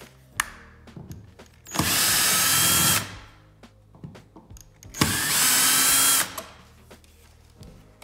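Cordless drill/driver running twice, about a second each with a steady whine, backing out the screws that hold a wall switch in its electrical box. Light clicks of hand handling come between the two runs.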